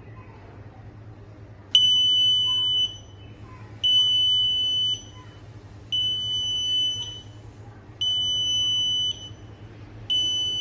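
Smoke alarm with a sealed-in ten-year battery sounding: a high-pitched beep about a second long, repeated roughly every two seconds, five times, starting about two seconds in.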